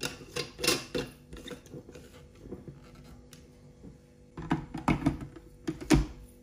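Glass blender jar being handled: a plastic blade base is screwed onto it with a run of clicks and knocks, then the jar is turned over and set into the motor base with a second cluster of knocks, the loudest near the end. The motor is not running.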